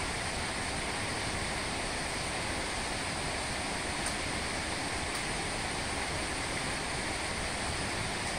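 Steady rush of a mountain valley stream, an even hiss of running water that holds at one level throughout.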